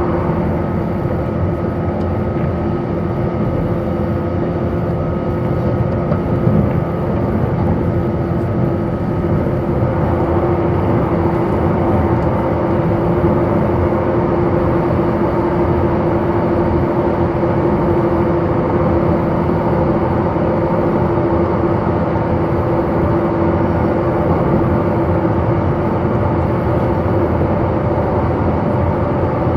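Running sound heard inside the passenger car of a JR 185-series electric train travelling at steady speed: continuous wheel and rail noise under a steady hum, with no stops, horn or chime.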